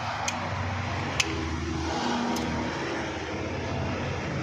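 A motor vehicle engine running steadily close by, with three sharp metallic clicks, the first near the start and the others about one and two seconds later, from drum-brake springs and shoes being handled.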